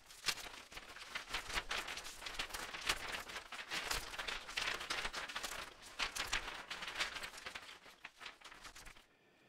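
Crackling title-sequence sound effects: a dense, irregular run of sharp clicks and hits over a crackly hiss. It fades out about a second before the end.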